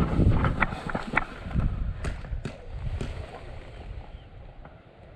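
Airsoft gun firing three sharp shots about half a second apart, a little after two seconds in, over wind rumble on the microphone.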